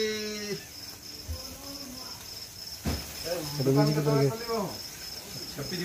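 Crickets chirping in a steady, evenly pulsing trill, about three pulses a second. A person's voice is heard briefly at the start and again for about a second near the middle.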